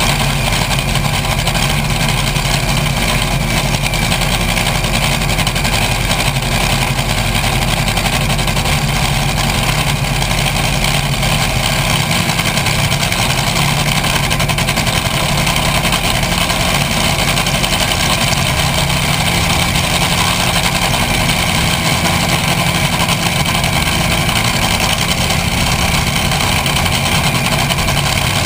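Top Fuel dragster's supercharged V8 engine idling steadily at a constant loud level, picked up by a camera mounted on the car's nose.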